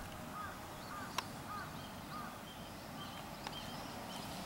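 Small animals calling over faint outdoor background: a run of short chirps, about two a second, in the first half, then higher, shorter notes repeating in the second half, with two faint clicks.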